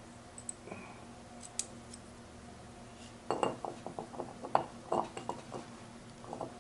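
Small steel gearbox parts clicking and clinking against each other as the blocks and springs of a Ford 2000E synchro hub are worked into place by hand. A few faint ticks at first, then a quick run of metallic clicks and knocks from about three seconds in.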